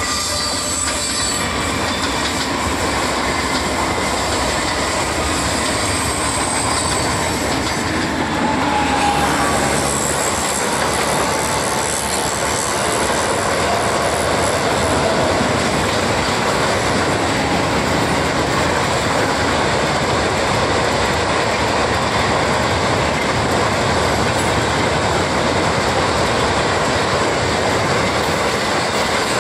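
Empty flatbed freight wagons rolling past close on the near track: a continuous clatter of steel wheels over the rails, growing louder about eight seconds in. An electric multiple unit and an electric locomotive's train run on the farther tracks.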